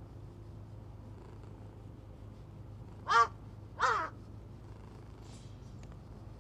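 A crow cawing twice, two short loud calls about half a second apart, the second dropping in pitch at its end.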